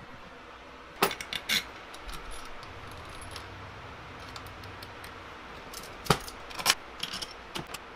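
Small metal hardware clinking against a stack of steel plates as it is worked by hand with a hex key and locking pliers. There are two clusters of sharp clinks, one about a second in and another from about six seconds to near the end.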